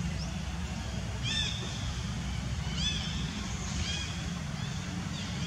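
Steady low rumble with three short, high-pitched calls that fall in pitch, about a second, three seconds and four seconds in.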